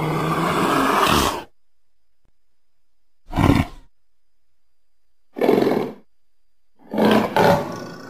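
Leopard calling: one long call at the start lasting about a second and a half, then three shorter calls about two seconds apart. The last call is broken in two.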